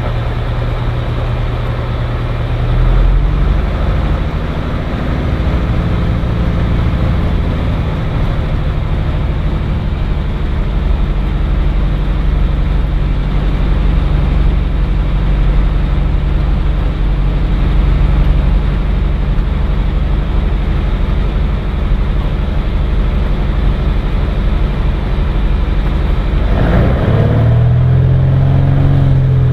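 Cirrus SR20's piston engine and propeller droning steadily, heard from inside the cockpit. The engine note shifts about three seconds in and changes again near the end.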